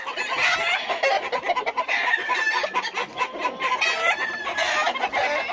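Gamecocks crowing and clucking, several calls overlapping without a break.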